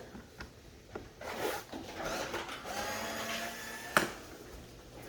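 A small electric drill-driver's motor whirs steadily for about two and a half seconds as it turns a screw in a car door panel. A sharp click follows just after it stops.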